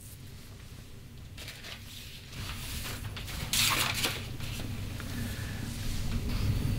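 Sheets of paper rustling and sliding as drawings are handled and swapped, with the loudest rustle about three and a half seconds in. A low rumble grows near the end.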